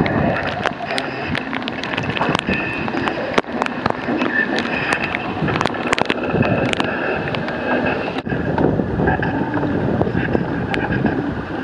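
A live experimental noise performance: a dense, crackling wash of noise with steady high drones and many sharp clicks, with storm wind buffeting the microphone.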